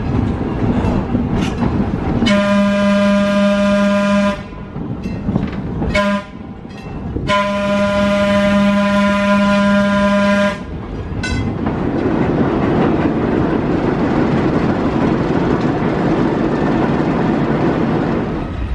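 A train's air horn sounds a long blast, a short toot, and a second, longer blast. After that comes the steady rumble of the rail car rolling along the track.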